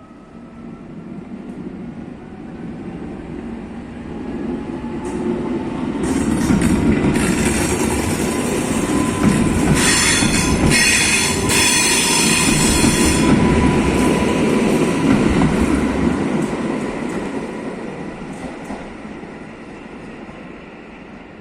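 A train running past close by. It builds up over several seconds and stays loudest through the middle, with high metallic wheel squeal near its peak, then fades away.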